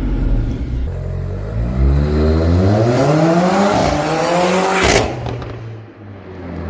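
Mercedes-Benz CLA45 AMG's turbocharged 2.0-litre four-cylinder accelerating through an Armytrix valved exhaust: the engine note rises, dips at a gear change about four seconds in and climbs again. About five seconds in comes a sharp crack, after which the engine runs quieter.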